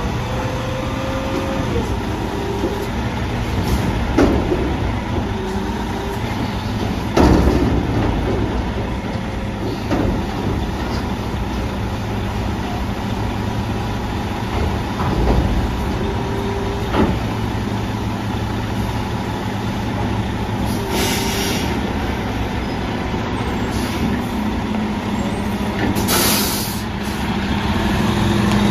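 Freightliner garbage truck's diesel engine running while its Pak-Mor commercial side-loader arm tips a metal dumpster over the hopper and lowers it back down, with several loud metal clanks and bangs in the first half. Two short hisses of air come in the second half, and the engine speeds up near the end.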